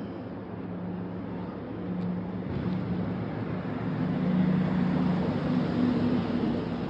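A passing engine's hum, growing louder over the first few seconds and easing slightly near the end, over a steady rushing background.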